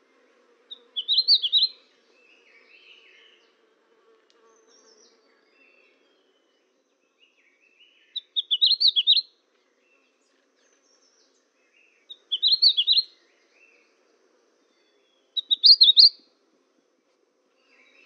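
Small songbirds chirping: four loud, rapid runs of chirps about a second long each, with softer twitters in between.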